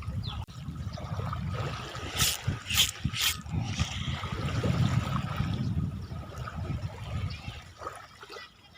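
Water trickling and lapping under a low steady rumble, with three short, sharp sounds about two to three and a half seconds in.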